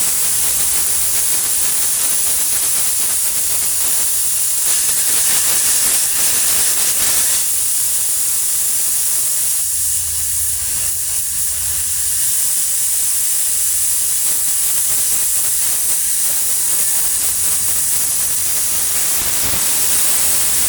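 Paint spray gun hissing steadily as compressed air blows through it.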